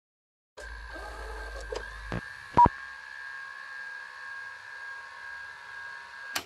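Electronic audio logo sting: after a moment of silence, a steady electronic hum of held tones starts, with a few sharp clicks in its first two seconds. The loudest is a bright blip a little over two and a half seconds in, and there is one more click near the end.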